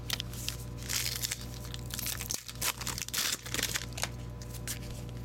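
Foil wrapper of a hockey card pack crinkling and tearing as the pack is opened, in a few short rustling bursts over a steady low hum.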